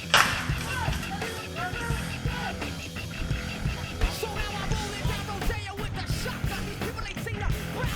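Rock music with a singing voice over a steady beat, with one sharp, loud crack just after the start.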